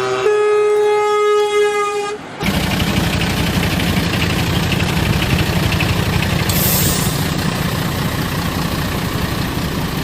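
Truck horn blaring as one held tone for about two seconds, then cutting out to the steady noise of a truck engine running, with a brief hiss about six and a half seconds in.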